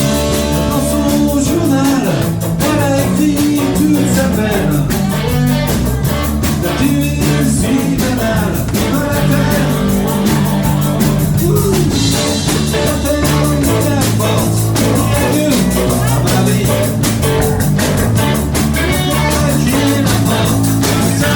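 Live rock band playing at full volume: electric guitar over bass and drums keeping a steady beat.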